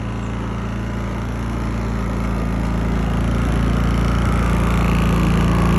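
Predator 3500 portable generator's gasoline engine running at a steady speed, growing steadily louder as it is approached.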